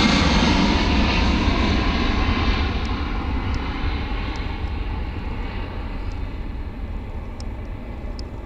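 Airbus A320-214's CFM56 jet engines at takeoff thrust as the airliner climbs away: a loud, even jet roar that fades steadily as it recedes.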